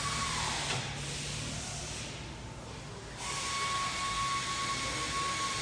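A machine's steady high-pitched whine over a hiss, cutting out about half a second in and starting again about three seconds in.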